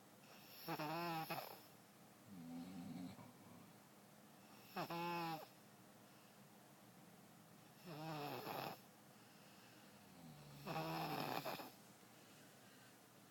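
A baby snoring in regular breaths, a short pitched, wavering snore about every three seconds: four louder ones and a softer one between the first two.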